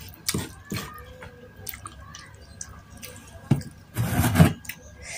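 Close-miked wet chewing and mouth smacks of a person eating seblak, soft chewy crackers in a spicy sauce. Several short, sharp smacks, with a louder half-second noise about four seconds in.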